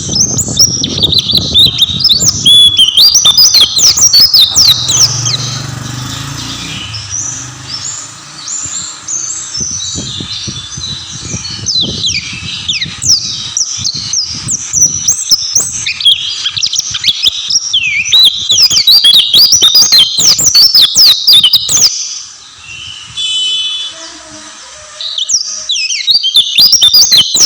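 White-eye (pleci) singing a fast, continuous song of high twittering, sweeping chirps. The song breaks off for a few seconds near the end, then starts again.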